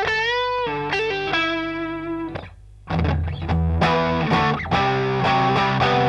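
Electric guitar played through a Catch 22 overdrive pedal, a Timmy-style overdrive, with an overdriven tone. A note is bent upward near the start and left to ring. A brief pause comes about two and a half seconds in, then picked chords follow.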